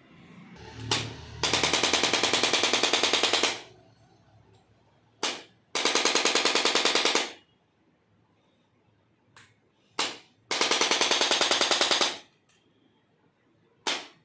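Rapid mechanical tapping, about ten strikes a second, in three bursts of one and a half to two seconds, each burst following a single sharp click.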